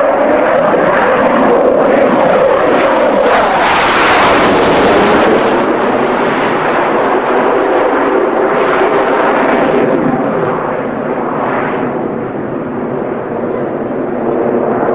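Swing-wing twin-engine jet fighter making a display pass in afterburner: loud, steady jet noise that turns harsher and hissier for about two seconds around four seconds in as it passes, then fades slowly as it climbs away.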